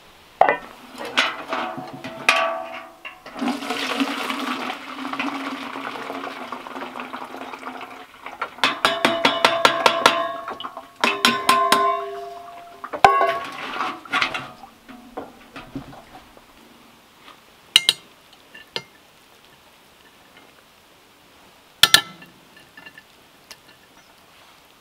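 Water pouring for a few seconds as a pot is drained into a metal pail, then a rapid run of metallic clanks, about five a second, as the pot or strainer is knocked against the pail's rim, followed by a few ringing knocks. Near the end there are a few light clicks of utensils on plates.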